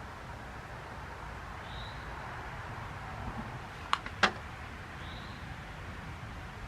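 Two sharp clicks in quick succession about four seconds in, over steady outdoor background noise, with a few faint, short, high bird chirps.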